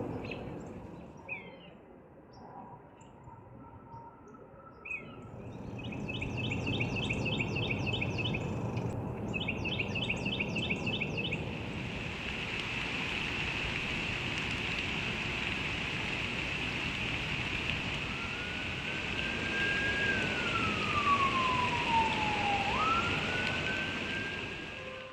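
A high, steady buzz fills the background, rapidly pulsed at first and continuous from about halfway. In the last third an emergency-vehicle siren wails once: it rises, holds, falls slowly over a few seconds, then sweeps quickly back up.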